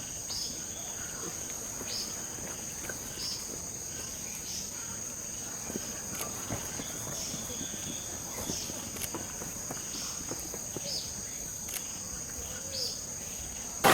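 Outdoor insect chorus: a steady high-pitched drone, with short chirps repeating about once a second.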